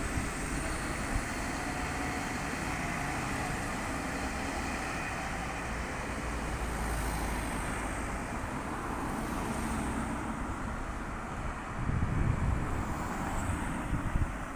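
Road traffic: steady motor-vehicle noise with a louder vehicle passing about twelve seconds in.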